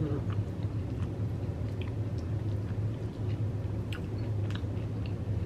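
Close-up chewing of a mouthful of Xxtra Hot Cheetos taco bowl, with scattered small wet mouth clicks over a steady low hum.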